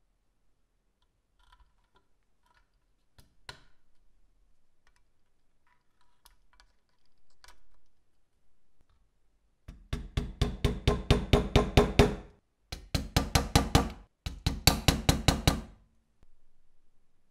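Light clicks of metal toy parts being handled, then rapid metal-on-metal tapping, about eight strikes a second, in three runs of a few seconds each that make up the loudest part.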